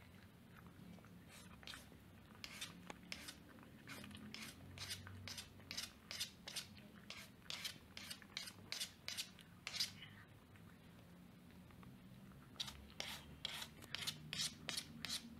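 A cat eating from a metal plate: a run of short, sharp chewing clicks, about three a second, that pauses around ten seconds in and starts again near the end.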